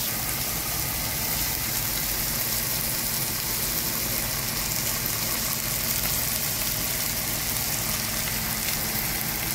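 Diced onion, potato, carrot and green chilli sizzling steadily in hot oil in a metal pan.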